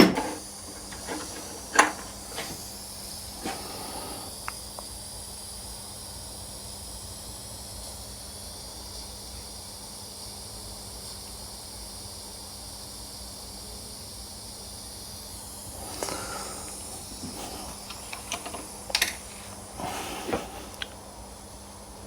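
Steady hiss of a heat gun shrinking heat-shrink sleeving over a freshly soldered wiring joint. It cuts off about 16 seconds in, with a few sharp clicks and knocks of handling near the start and again near the end.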